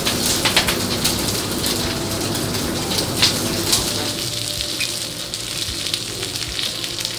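Duck breast sizzling skin-side down on a hot flat-top griddle, its fat crackling and spitting as it renders. The sizzle eases a little about four seconds in.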